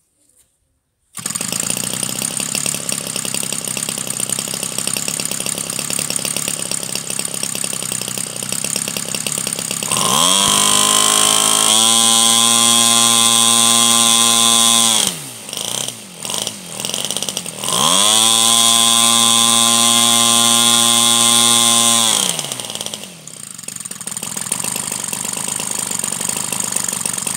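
26–30cc single-cylinder two-stroke gasoline model-airplane engine swinging a wooden propeller on a test stand: it catches about a second in and runs at idle, then is throttled up to high revs in a rising whine, drops back with a few stumbles, runs up to high revs a second time, and settles back to idle near the end.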